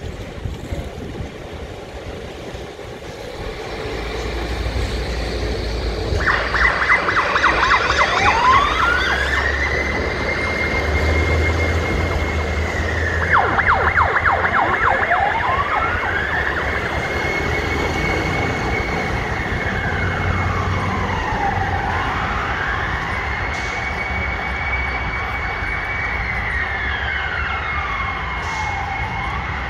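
Fire truck sirens and engine rumble as two appliances pull out on a call. About six seconds in a siren starts with a rapid yelp, then climbs into a slow wail that holds, falls and rises again. Another brief yelp burst comes about halfway through.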